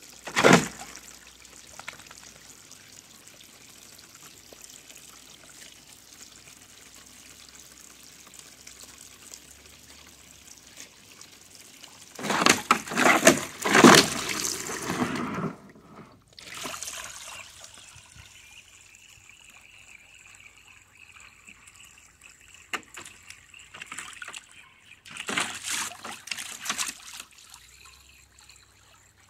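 Garden hose running water into a dog's wading pool with a steady trickle, broken by louder splashing as the dog moves through the water: a short burst right at the start, a longer stretch about midway, and another near the end.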